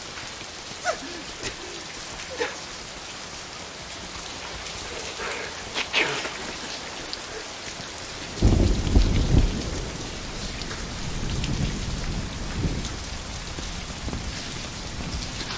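Steady rain falling, with a few sharp drips, and a deep roll of thunder breaking about eight and a half seconds in, then fading off.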